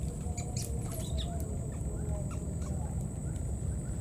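Several short, high-pitched animal squeaks and chirps in the first second or so, over a steady high whine and a low rumble.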